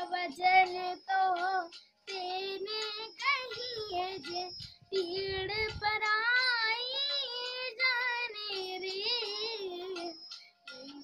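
A boy singing solo, holding long, wavering notes in phrases with short pauses between them.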